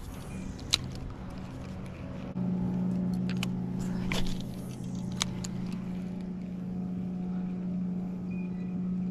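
A boat motor running with a steady hum that steps up louder about two seconds in, with a few sharp clicks over it.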